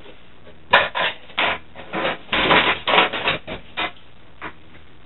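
Irregular rattling and scraping of hardware being worked loose and pulled out of a steel desktop PC case, a burst of clatter through the middle few seconds, as the power supply comes out.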